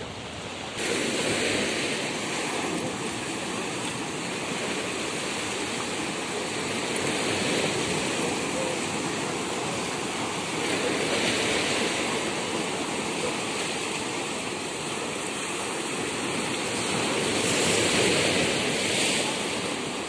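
Sea surf: waves breaking and washing onto the shore, a steady rush that swells and ebbs with each wave, loudest near the end.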